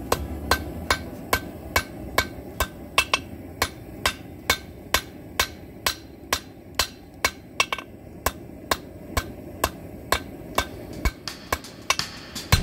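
Hand hammer striking steel held in tongs on an improvised steel anvil: a steady run of sharp metal-on-metal blows, about two to three a second, coming a little quicker near the end.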